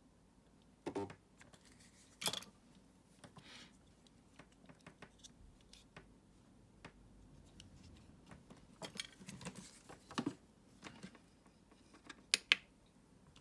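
Irregular light clicks, taps and knocks of small hard parts being handled, with a sharper click about two seconds in and two quick sharp clicks near the end.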